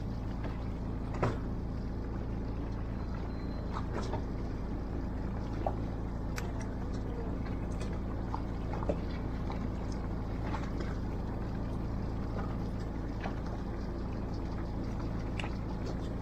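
Fishing boat's engine running with a steady low hum, with scattered light clicks over it.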